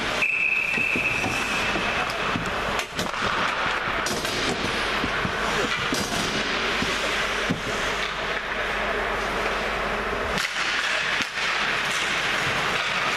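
Ice hockey play in a rink: skates scraping over the ice with a steady hiss, and several sharp clacks of sticks and puck hitting. A steady high tone sounds for the first two and a half seconds.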